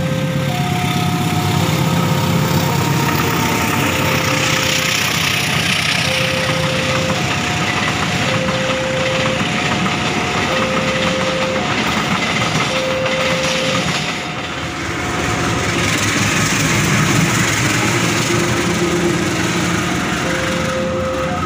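Railway level-crossing warning alarm sounding a steady two-tone ding-dong, about one note a second, while a diesel-hauled passenger train rumbles past, its engine and wheels running over the rails.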